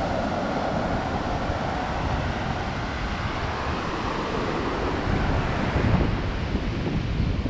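Low surf breaking and foam washing up a sandy beach, with wind rumbling on the microphone. The sound swells a little louder about six seconds in.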